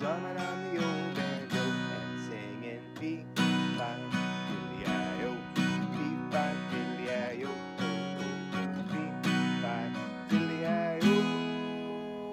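Acoustic guitar strummed in a steady rhythm, ending on a chord left to ring out near the end.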